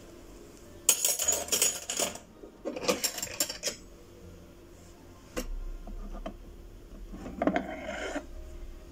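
Small hard objects clattering and rattling as they are handled, in three bursts with a single sharp click between the second and third.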